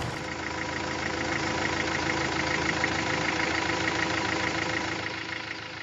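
Engine idling steadily with a fast, regular ticking, fading out near the end.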